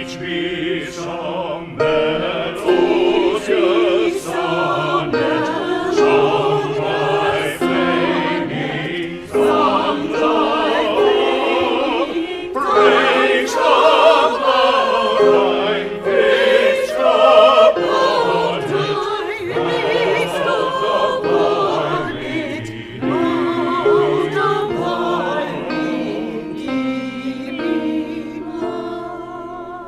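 Church choir singing a hymn anthem, several voice parts sounding together in harmony.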